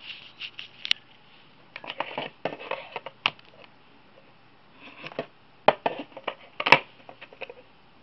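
Handling noise from a 2.5-inch Seagate Momentus laptop hard drive as it is turned over on a wooden desk. Its metal casing gives a few sharp clicks and knocks among bouts of scraping and rubbing, with the loudest knock near the end.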